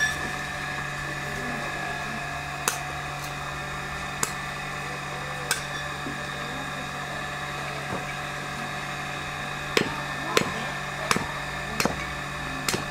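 Hatchet chopping kindling held on a wooden stump: about ten sharp chops, a few spread out at first, then a quicker run near the end. A steady hum runs underneath.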